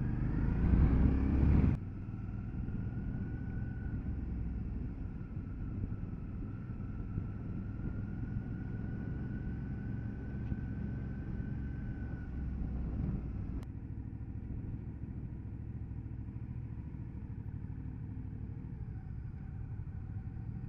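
Motorcycle engine running, with a louder low rumble for the first couple of seconds that drops off suddenly, then a steady, quieter hum.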